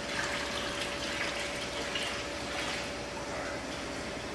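Water pouring and splashing into a larval rearing tank, a continuous watery rush, with a faint steady tone underneath.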